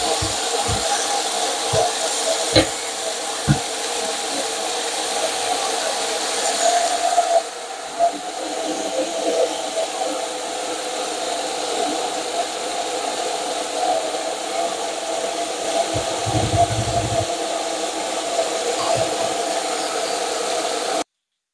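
Pork ribs sizzling in a frying pan, under a steady whirring hum. In the first few seconds a metal fork clicks against the pan several times as the ribs are turned.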